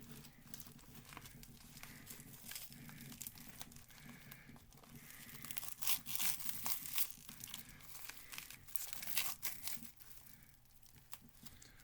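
Postal packaging being pulled and torn open by hand: irregular tearing and crinkling, heaviest around six to seven seconds in and again around nine seconds.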